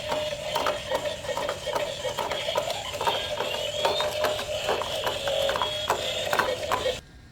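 Rapid, irregular clicking and ratcheting over a steady background tone, cutting off abruptly near the end.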